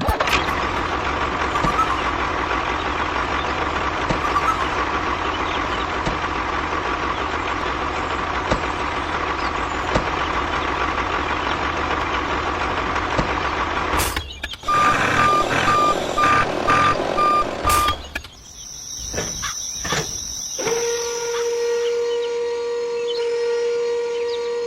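A heavy vehicle's engine running steadily. After a break comes a series of evenly spaced reversing beeps, then a few knocks and a steady humming tone near the end.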